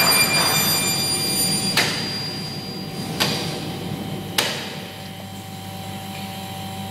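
Glass unit knocking against its aluminium façade frame three times, about a second and a half apart, as it is pushed into position, over a steady machine hum.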